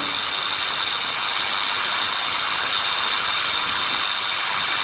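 Steady hiss of an off-air radio broadcast recording, with a few faint high whining tones running through it.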